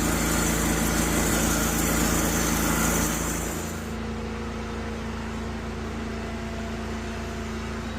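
A motor vehicle engine running close by with a loud rushing hiss, which eases off about three and a half seconds in and settles to a steady low hum.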